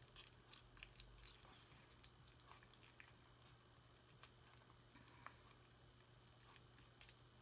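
Faint, irregular clicks and scrapes of a small stir stick working thick yellow chalk paste in a plastic jar.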